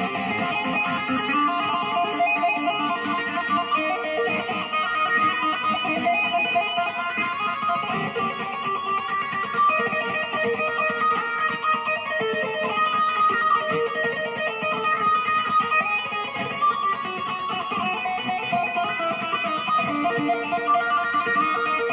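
Electric guitar played through a Valeton GP-50 multi-effects processor: a continuous line of plucked notes that keep changing in pitch.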